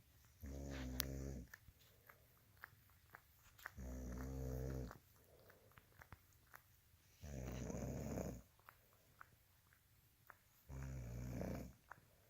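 Steady, rhythmic snoring: four snores, each about a second long, coming about every three and a half seconds, with faint clicks between them.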